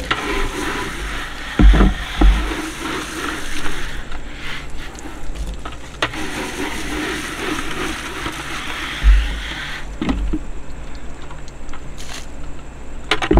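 Garden hose spray nozzle spraying water into a plastic bucket, rinsing it out, with a steady hiss that stops about ten seconds in. A few dull thumps come through the spray.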